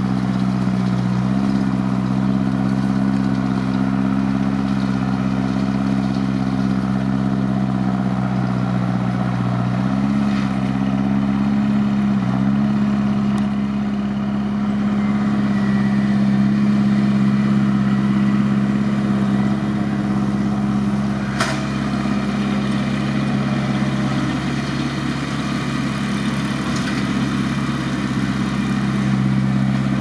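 Tractor diesel engine running steadily under load, pulling a McHale F5500 round baler that is picking up rows of cut grass; the engine note shifts slightly a few times, around the first second and about ten and twelve seconds in. A single sharp click sounds about two-thirds of the way through.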